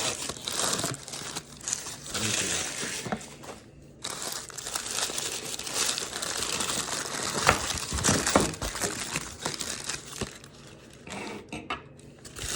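Plastic packaging crinkling and rustling as tremolo bridge parts are unwrapped by hand, in irregular stretches, with a few sharp clicks of small hardware about halfway through.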